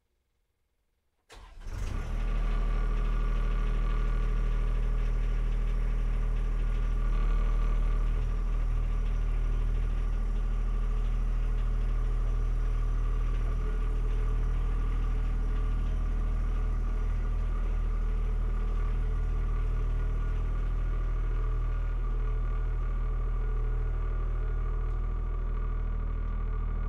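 John Deere 1025R compact tractor's three-cylinder diesel engine starting about a second in, then running steadily.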